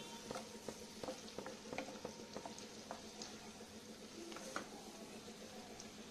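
Chopped garlic sizzling faintly in melted butter in a nonstick pan, with many small irregular crackling pops, while a wooden spatula stirs it.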